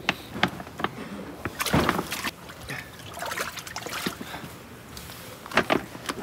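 Water splashing and dripping as bass are lifted dripping out of a boat's livewell and put into a water-filled plastic weigh-in bag. The loudest splashes come about two seconds in and again near the end.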